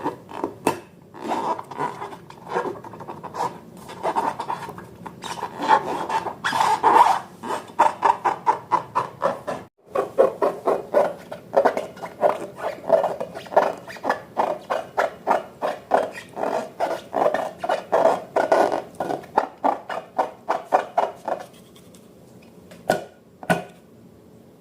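Slime being stirred and squished, a run of rhythmic wet rubbing strokes about three a second. The strokes stop a few seconds before the end, followed by two sharp knocks.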